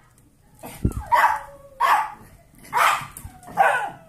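Small dogs barking in play: about five short, sharp barks, roughly one a second, with a faint thin whine sliding down in pitch between them and a low thump about a second in.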